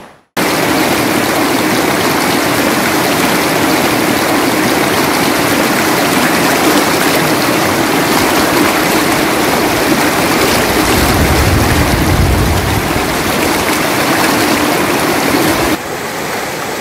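Shallow river rushing over rocks: a steady wash of water noise. A low rumble joins it about two-thirds of the way through, and the level drops a little near the end.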